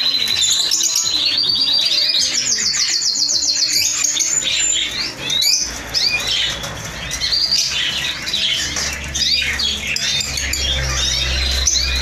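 Several caged canaries and finches singing and chirping together, with a fast, evenly pulsed trill in the first few seconds.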